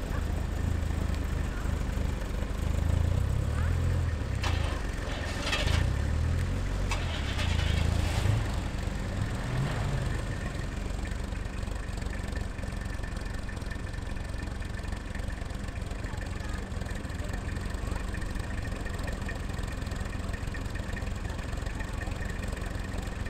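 Classic cars, among them a 1970s Ford Pinto, driving slowly past one after another, their engines running at low speed. The engine sound is strongest in the first eight seconds or so, then settles to a steadier, quieter hum.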